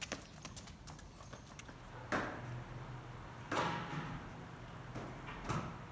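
A few sharp knocks at irregular intervals, the two loudest near the middle each trailing into a brief scrape, over a low steady hum.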